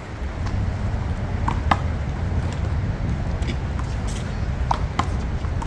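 One-wall handball rally: sharp smacks of the small rubber ball off players' hands and the concrete wall, several over a few seconds with the loudest about two seconds in, over a steady low rumble of city traffic.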